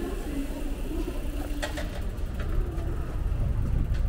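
City road traffic: a steady low rumble of passing cars, with a few faint clicks between one and a half and two and a half seconds in.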